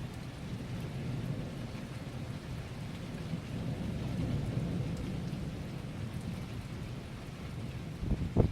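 Thunderstorm: steady rain with a continuous low rumble of thunder that swells in the middle. Near the end, louder and sharper bursts of thunder begin.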